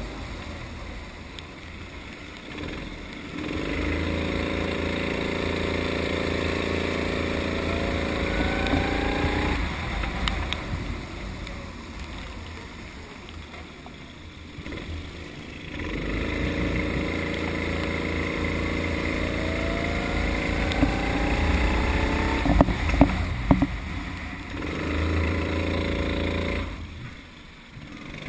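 Sodikart rental go-kart engine heard from the driver's seat, its pitch rising steadily as it pulls along a straight and falling away as the throttle is lifted for a corner. This happens twice, with a third pull starting near the end. A few sharp knocks come about two-thirds of the way through.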